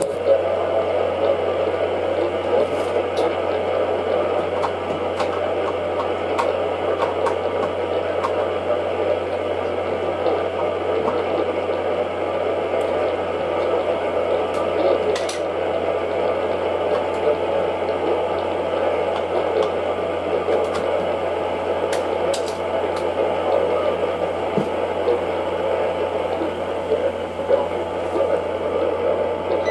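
Steady static hiss from a GXT67 Pro radio receiver tuned to a weather-band station with no speech coming through, over a low steady hum, with a few faint clicks.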